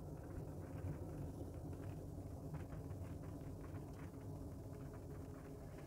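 Steady, low engine and road rumble of a vehicle heard from inside its cab while it drives slowly.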